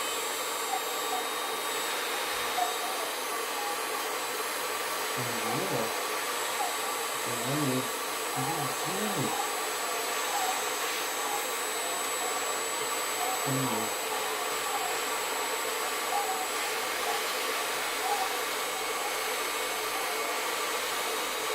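Electric hot-air blower running steadily, a constant whooshing hiss with a steady whine. A few short low-pitched sounds come and go in the middle.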